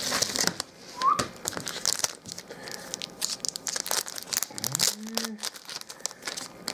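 Plastic card sleeves and a paper mailing envelope crinkling and rustling as trading cards in top-loaders are slid out and handled, with many small irregular crackles and ticks.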